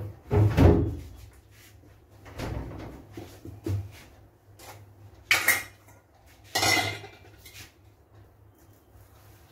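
Kitchen dishes and utensils being handled on a counter: a couple of dull thumps at the start, a few light knocks, then two sharp metal clatters in the middle.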